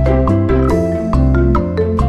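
Background music: an upbeat tune led by a marimba-like mallet instrument over a steady bass beat.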